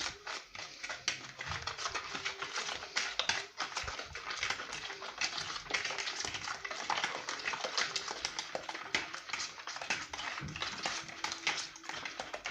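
Eggs and sugar being whisked in a bowl, the whisk clattering quickly and unevenly against the bowl's side.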